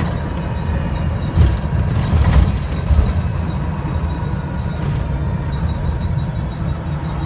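Urban Triker electric trike running with a steady low rumble and a faint steady whine, with a few knocks between about one and a half and three seconds in. This is the abnormal noise the owner cannot explain.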